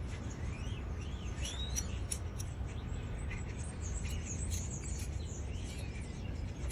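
Birds chirping, with short rising and falling calls scattered throughout, over a steady low rumble of background noise.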